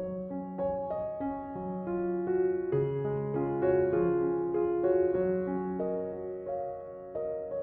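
Slow background piano music: a melody of single notes over held lower notes.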